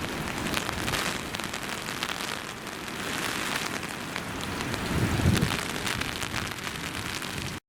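Heavy typhoon rain falling, a steady hiss of many drops, with a low rumble swelling about five seconds in. The sound cuts off abruptly just before the end.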